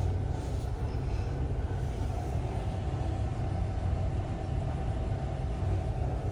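Steady low machinery rumble with no distinct knocks or strokes.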